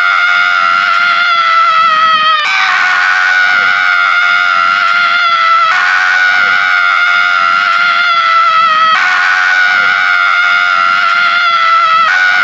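A man holding a long, high-pitched scream that breaks off briefly about every three seconds and starts again, each held note sagging slightly in pitch.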